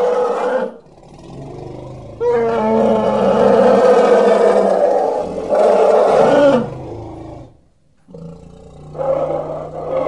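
African bush elephant calling: a call that breaks off just under a second in, then a long call of about four seconds whose pitch falls away at its end, and another call starting near the end.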